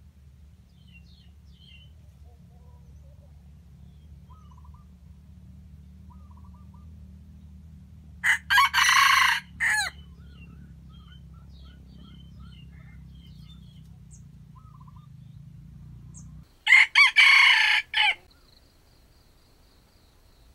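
A rooster crowing twice, each crow about a second and a half long, the second coming about eight seconds after the first.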